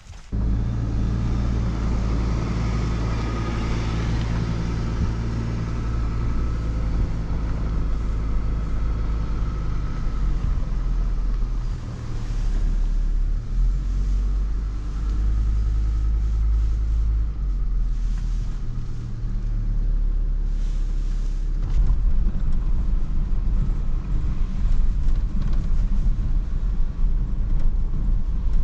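Pickup truck driving, heard from inside the cab: a steady engine drone with low road rumble. About two-thirds of the way through the rumble turns rougher and a little louder.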